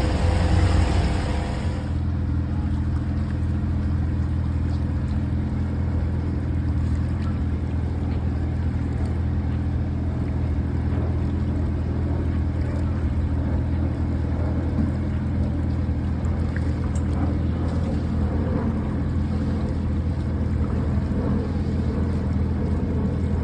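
An engine aboard a boat running steadily at a constant speed, a low even hum. A brighter hiss over it cuts off about two seconds in.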